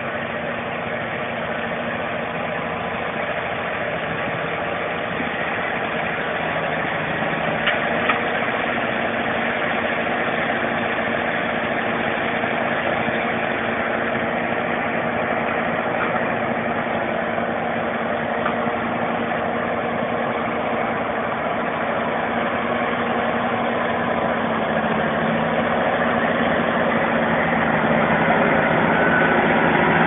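Cockshutt 50's six-cylinder diesel engine running steadily under load while it pulls and drives an Allis-Chalmers Roto-Baler picking up a hay windrow. It grows gradually louder as the tractor comes closer, with a brief knock about eight seconds in.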